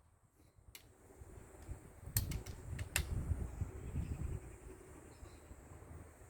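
Steyr LG110 air rifle being worked between shots: one sharp click under a second in, then a quick run of sharp clicks about two to three seconds in, over a low rumble of wind on the microphone.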